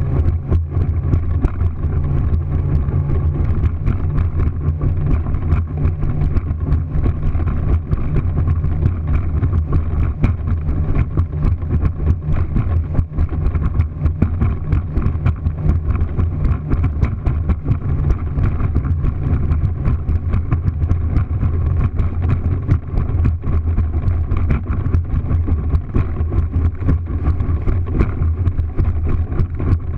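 Motorboat running at speed over open water: a steady low engine drone with frequent short knocks on top.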